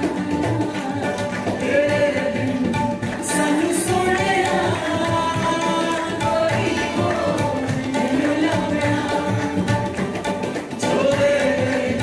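Live Punjabi folk-style music: tabla and a box drum keeping a steady beat under strummed acoustic guitar and harmonium, with a voice singing a wavering melody over them.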